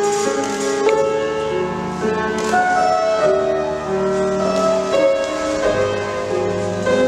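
Piano music: a slow, flowing melody over sustained chords, of the kind played as accompaniment for ballet barre exercises.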